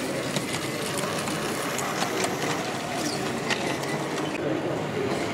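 A model locomotive's small electric motor whirring steadily as it runs along the track, with scattered light clicks from the wheels and track.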